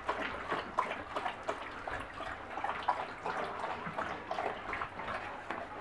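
Several dogs moving about close by on a concrete floor: a steady run of small irregular clicks and ticks, with no barking.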